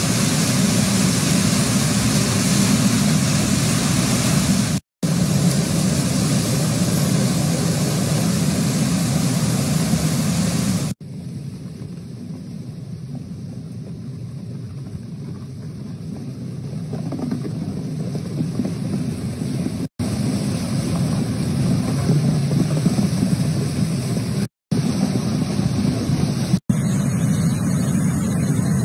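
Roar of a brown flash-flood torrent of mud and debris rushing down a village street, a dense steady rush. It breaks off abruptly several times and is quieter for a few seconds in the middle.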